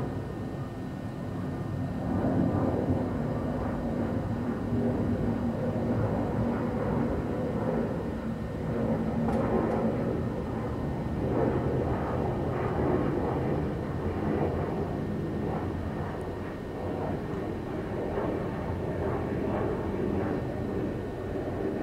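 Airbus A321neo's Pratt & Whitney geared turbofan engines at climb thrust, heard from the ground as a steady jet rumble that swells and ebbs gently as the airliner climbs away. A low hum under it fades out in the first several seconds.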